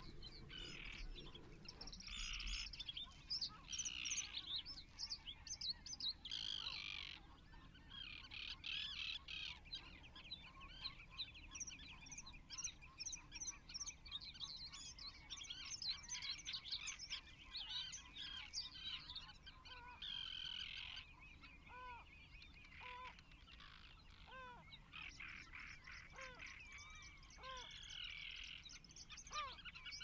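Many birds chirping and calling at once in a continuous, overlapping chatter of high notes, joined in the second half by a series of short, lower calls a second or two apart.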